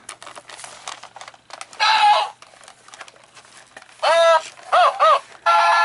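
Small clicks and rattles of a Gemmy animatronic being handled, then a few short squawk-like tones that rise and fall. Near the end the figure's speaker starts playing its Christmas song.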